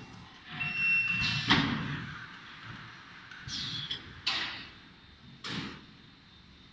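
Automatic weighing filling machine working: a short hiss with a thin whistle, then three sharp mechanical clunks spread over several seconds, the first and loudest about a second and a half in.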